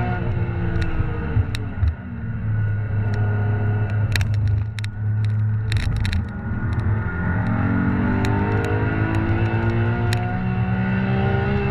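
Sports car engine heard on board during a hard track lap. The revs fall over the first two seconds under braking, and a few sharp knocks come as the car crosses bumps about four to six seconds in. Then the revs climb steadily through the second half under full acceleration.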